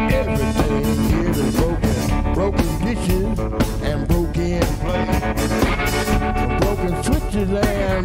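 Live band playing a song: electric guitar with bending, wavering notes over bass guitar and a drum kit.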